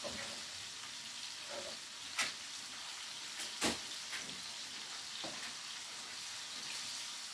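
Chicken searing in olive oil in a frying pan, a steady sizzle, with a few sharp clicks, the loudest about two seconds and three and a half seconds in.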